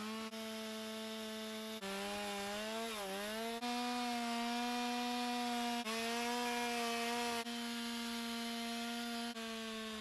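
Carving chainsaw running at high revs, its pitch sagging and recovering about three seconds in as it bites into the wood. The tone jumps abruptly every couple of seconds.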